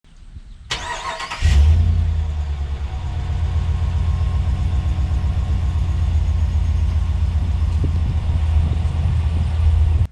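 2019 Ram 1500's 5.7 HEMI V8 cold-starting on its stock exhaust. The starter cranks for under a second, the engine catches loudest about a second and a half in, then settles into a steady idle.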